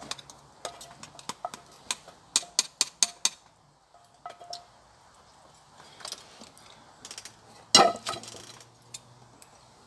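A spoon clinking and scraping against a small metal pot as beans are served out: a quick run of sharp clinks in the first few seconds, a few scattered ticks, then one louder knock near the end.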